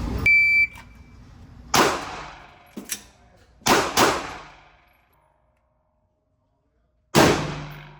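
A shot-timer beep, then pistol shots with ringing echoes: one shot, then a quick double tap, then a last shot near the end.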